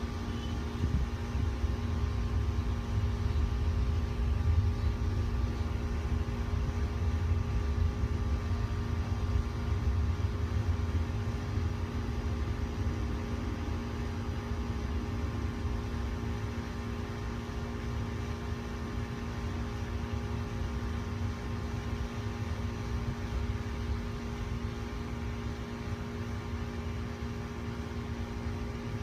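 Air conditioner running: a steady hum with several constant tones over a low rumble, the rumble heavier in the first dozen seconds.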